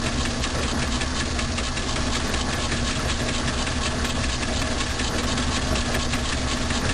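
Logan lathe running with a cutter in the chuck, milling an aluminum vise jaw on a milling attachment at a cut about ten thousandths deep. It makes a steady machining noise with a fast, even ticking, and the cut is going smoothly.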